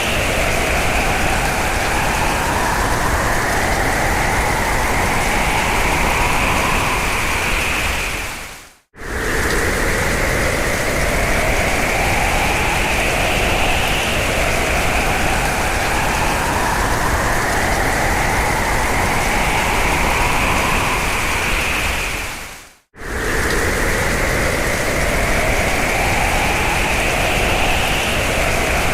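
Strong storm wind sound effect: a loud, steady rush with a howl that slowly rises in pitch, over and over. It fades out to silence and cuts straight back in twice, about nine seconds in and again some fourteen seconds later, where the effect loops.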